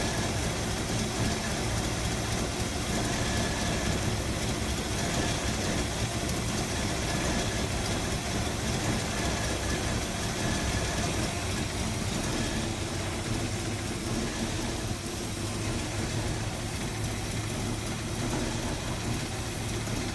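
Car engine idling steadily with a new fan belt fitted. The owner says it seems to be running rougher and cannot explain why.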